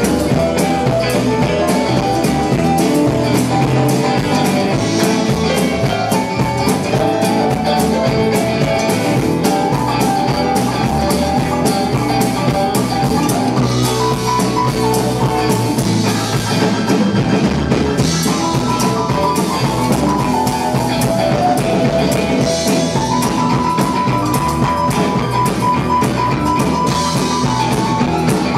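Live R&B band playing: a drum kit keeping a steady beat under electric guitars, with a violin holding long notes over the top.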